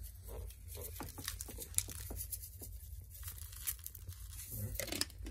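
Small spice shaker shaken over raw steaks on a paper plate: quick, scattered light ticks and rattles as seasoning is sprinkled, over a steady low hum.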